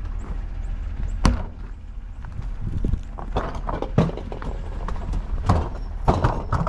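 Footsteps on pavement and scattered knocks and thumps from handling a small white appliance as it is carried and set onto a pickup truck's tailgate; the sharpest knocks come about a second in, at four seconds, and in a cluster near the end, over a steady low rumble of wind on the microphone.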